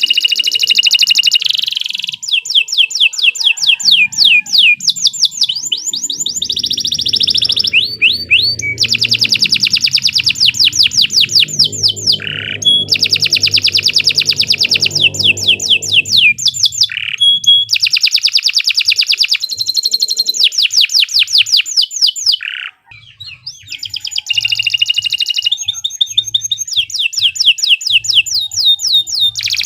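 Domestic canary singing a long, unbroken song: fast trills of rapidly repeated high notes, phrase after phrase with short pauses, and a few longer falling whistles between phrases. A faint low hum sits under the middle of the song.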